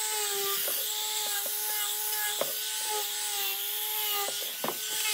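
Small angle grinder with a hook-and-loop sanding disc, running at a steady whine while the abrasive hisses against bare wood. A few short knocks come as the pad touches the board edges.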